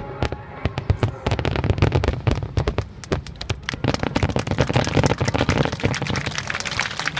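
Fireworks display: a dense, rapid run of bangs and crackling from shells bursting overhead, thickening into a near-continuous crackle about four seconds in.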